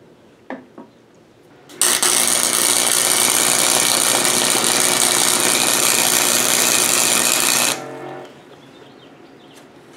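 MIG welder arc crackling steadily for about six seconds as a weld is run on the clamped pieces. It starts about two seconds in and cuts off abruptly, leaving a short fading hum. A couple of light clicks come before it.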